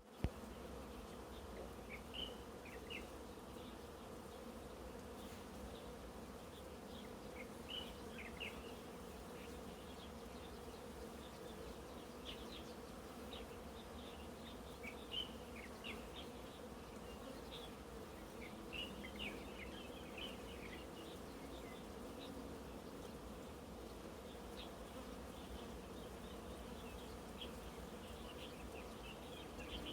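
A large swarm of honeybees buzzing as a steady, even hum, with a sharp click at the very start.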